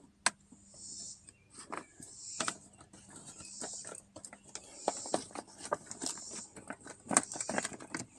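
Plastic moisture shield on a car door being handled and pressed back into place: crinkling with scattered irregular taps and clicks.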